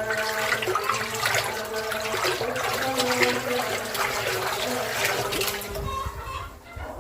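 Water running into a drum, a steady splashing rush as it fills; it stops about six seconds in.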